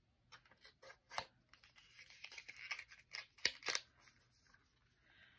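Small cardboard ink-bottle box being handled and closed: faint paper rustles and light clicks as the flaps are folded and tucked, with a few sharper clicks a little past three seconds in.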